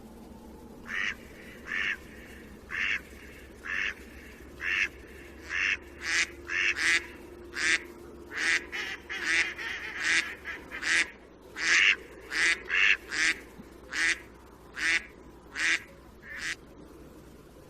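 Mallard quacking: a long series of loud quacks, about one a second at first, then faster and more crowded in the middle, easing off again before stopping near the end.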